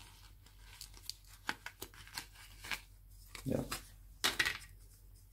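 Cardboard and plastic packaging crackling and clicking as a small plastic sensor is pressed out of its card insert, with a louder, short tearing crinkle a little over four seconds in.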